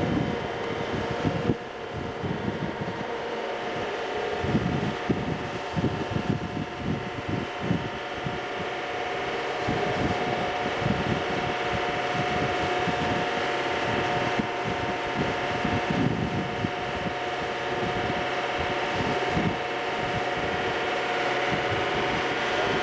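Motorboat engine running steadily under way, with wind buffeting the microphone in irregular low gusts.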